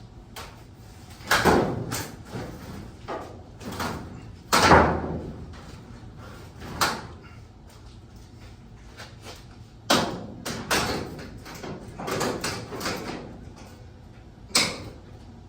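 Irregular bangs and knocks from work on a garage door knocked out of its track, about seven over several seconds, each ringing on briefly; the loudest comes about four and a half seconds in.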